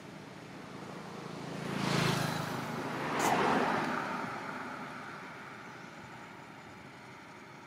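Two road vehicles pass close by in quick succession, about two and three and a half seconds in. The second, a car, drops in pitch as it moves away.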